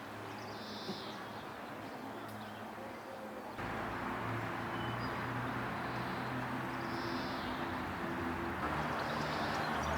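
Steady city traffic hum with engines running, and a songbird giving short high chirping phrases over it three times. About a third of the way in, the traffic noise suddenly gets louder.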